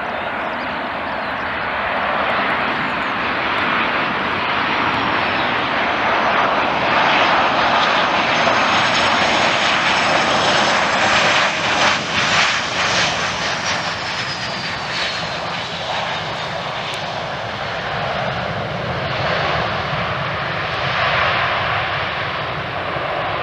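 Boeing 737-800's CFM56 jet engines roaring as the airliner passes low and lands. The roar builds to its loudest about halfway through, with a high whine falling in pitch as it goes by, then swells again near the end as it rolls out on the runway.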